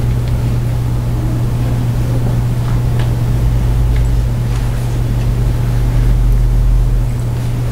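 A steady low hum over a deeper rumble and a light hiss, with a few faint clicks; the rumble swells briefly near the end.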